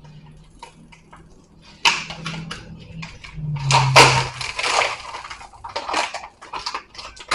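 Hands handling the plastic packaging of smoked chicken sausages: a busy run of crinkling and rustling with small clicks and clatters, starting about two seconds in.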